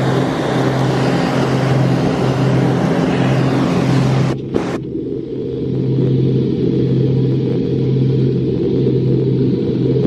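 Steady drone of a light aircraft's engine and propeller heard from inside the cabin as the plane descends to land. About four seconds in, the high hiss cuts out abruptly and leaves a muffled low drone.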